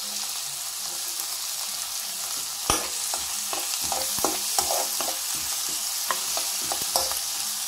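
Diced tomatoes and onions sizzling in oil in a non-stick frying pan, with a steady hiss. From about three seconds in, a spoon stirring them knocks and scrapes against the pan over and over.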